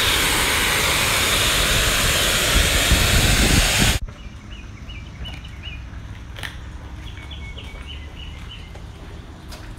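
Self-serve car wash high-pressure wand spraying water onto a car, a loud steady hiss that cuts off suddenly about four seconds in. Then it is much quieter, with birds chirping in short repeated calls.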